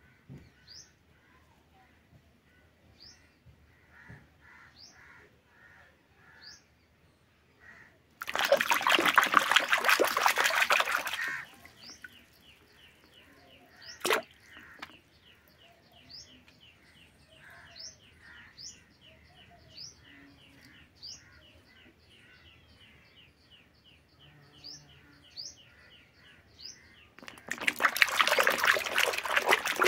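A hand splashing and sloshing muddy water in a plastic basin full of floating plastic toy animals, in two bouts of about three seconds each, one about a third of the way through and one near the end. Small birds chirp faintly throughout, and there is a single sharp click about halfway.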